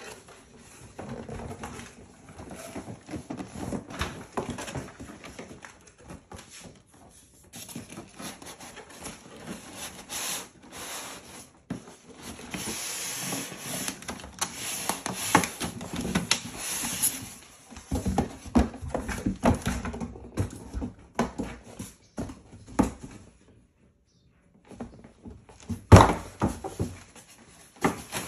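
Cardboard and polystyrene foam packing rubbing, scraping and squeaking as a boxed printer is slid out and handled, with scattered knocks. A short quiet spell comes late on, followed by a sharp knock.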